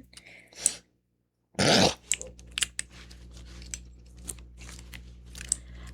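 Fidget toys being clicked and tapped in an irregular patter of sharp little clicks, after a brief rustling burst about a second and a half in.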